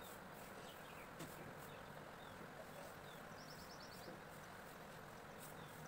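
Near silence: faint room tone with a steady low hum and a few faint ticks, and a short high chirping trill near the end.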